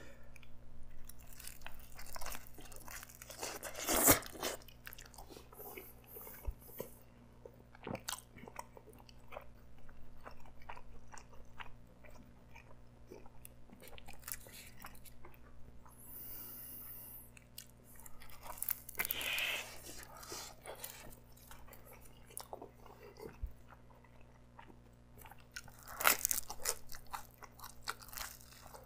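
Close-up chewing and biting of a slice of pepperoni pizza, its crisp crust crunching, with louder crunchy bites about four seconds in and again near the end.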